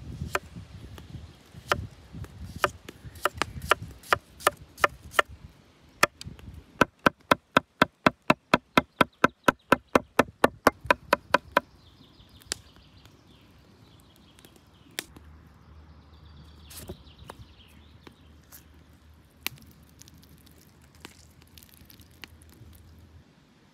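Large chef's knife chopping on a thick wooden cutting board, cutting lemon and herbs. Scattered single cuts give way to a fast, even run of about four chops a second for some five seconds, then a few single knocks.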